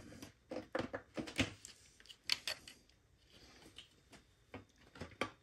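Scattered light clicks and knocks of a speaker grill being handled and pressed back onto the speaker cabinet, its tabs being pushed into their slots.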